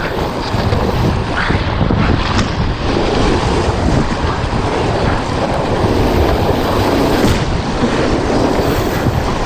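Rushing whitewater of a river rapid churning around an inflatable kayak, with wind rumbling on the action camera's microphone; loud and steady throughout.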